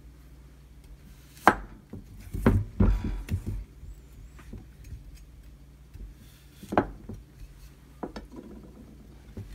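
Kitchen knife cutting the ends off long cucumbers, the blade knocking sharply on a bamboo cutting board. There are a few separate knocks: the loudest about a second and a half in, a quick cluster around three seconds, and another near seven seconds.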